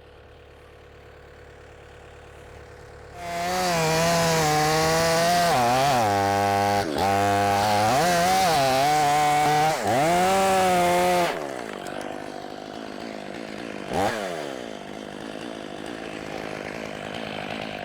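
Two-stroke chainsaw idling, then revved hard about three seconds in and cutting wood for about eight seconds, its pitch sagging and recovering each time the chain bites under load. It drops back about eleven seconds in to a quieter running saw, with a brief rev and fall near fourteen seconds.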